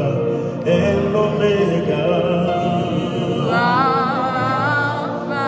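Worship music with singing: long held sung notes over sustained chords and a steady bass note, with a wavering high vocal line coming in about three and a half seconds in.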